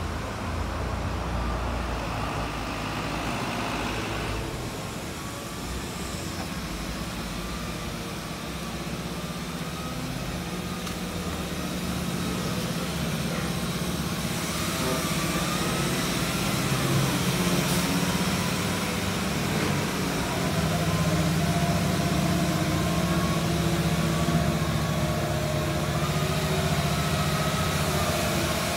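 Truck engine idling, a steady hum that grows louder about halfway through, with a faint wavering whine above it.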